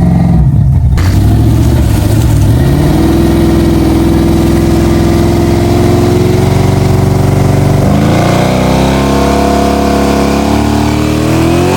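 Car engine revving hard under load, its pitch climbing, holding high, then dropping back about seven seconds in before climbing again near the end.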